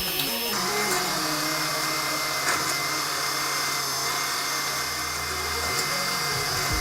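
Machinery running steadily: a constant hiss over a low engine-like hum.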